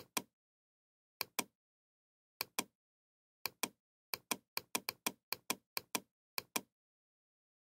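Computer mouse clicking ten times, each click a quick press-and-release pair, as the scrollbar's down arrow is clicked to step a page down. The clicks come about once a second at first, then faster from about four seconds in.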